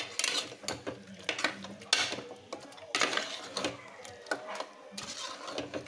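Metal ladle stirring raw mutton and spice paste in an aluminium pressure cooker: irregular scrapes and knocks of the ladle against the pot's metal sides and bottom.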